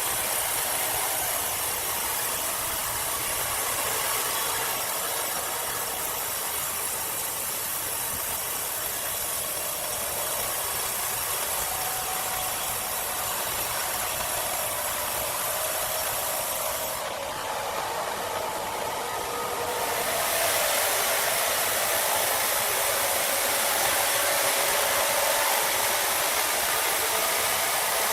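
A machine running steadily with a continuous whirring hiss, changing in tone and growing a little louder about two-thirds of the way in.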